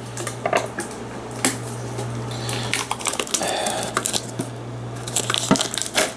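A metal Pokémon card tin being handled and unwrapped by hand: irregular crinkles, rustles and light clicks, over a steady low hum.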